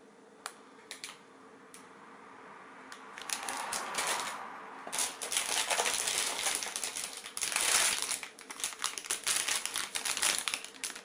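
Clear plastic bags of model-kit runners crinkling as they are lifted out of a box and handled, with light clicks. Quiet for the first couple of seconds, then a rising rustle that turns into dense crinkling from about five seconds in.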